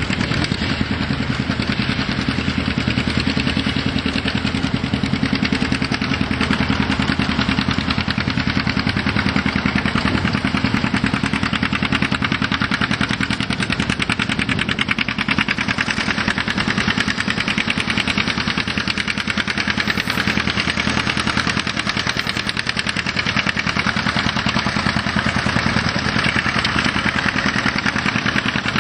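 John Deere two-cylinder tractor engine running steadily, its fast, even popping beat unbroken throughout.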